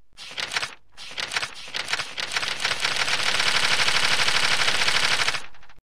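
A rapid rattle of clicks that breaks off briefly near the start and again about a second in, then grows denser and louder into a continuous rattle. It stops abruptly just before the end.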